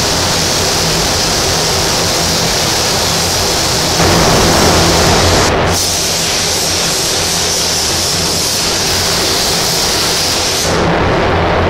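Compressed-air hiss of a gravity-feed paint spray gun laying down paint, cut off for a moment about five and a half seconds in and stopping near the end, over a steady low hum.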